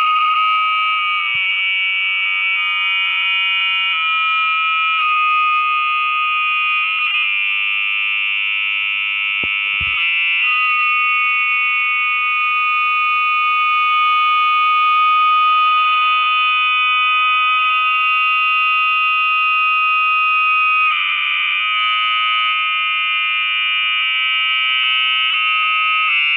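Audio feedback from a phone screen recording that plays back recordings of itself: a loud, steady whine of several held high tones that shifts in pitch a few times. A brief low thump comes about ten seconds in.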